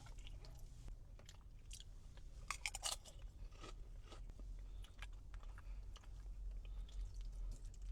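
A person chewing crunchy food, with scattered crisp crunches and a cluster of louder bites about two and a half to three seconds in, over a steady low rumble.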